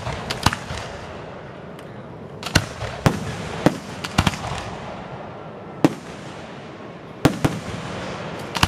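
Aerial fireworks shells bursting: about ten sharp bangs at irregular intervals, some in quick pairs, each followed by a short rumbling tail.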